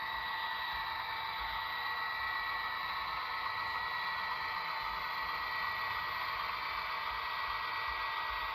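HO scale model train running along the track: a steady whirring hum from the locomotive motors, with high thin tones over the rolling noise of the cars.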